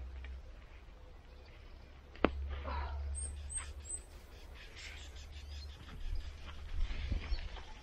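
A long-handled garden hoe chopping into overgrown weeds and grass: a sharp knock about two seconds in, then rustling and scattered further strikes. A small bird chirps three times in quick succession just after the knock.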